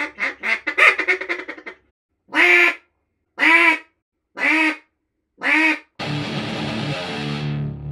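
A 737 Calls Dos double-reed duck call being blown: a fast run of quacks that trails off, then after a short pause four separate drawn-out quacks about a second apart. Guitar music comes in near the end.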